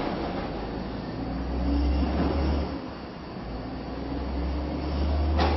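Heavy diesel engine of an automated side-loading recycling truck running and revving as the truck pulls away, its low rumble swelling twice. A sharp plastic clatter at the very start from the wheelie bin dropping onto the road, and a couple of knocks near the end.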